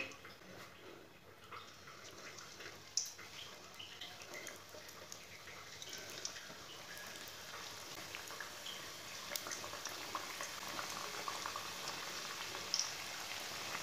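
Samosas deep-frying in hot oil: a faint sizzle with fine crackling that grows steadily louder as the samosas go in and the oil bubbles around them.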